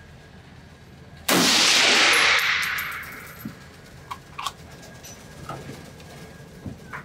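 A single shot from a 6mm ARC AR-15-pattern precision rifle, with a sharp start about a second in and a long echoing decay in the indoor range. A few faint clicks follow.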